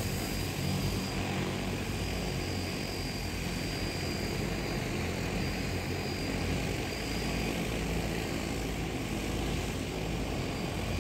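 DJI Agras T40 agricultural drone's coaxial propellers running steadily in flight, a continuous multi-rotor hum.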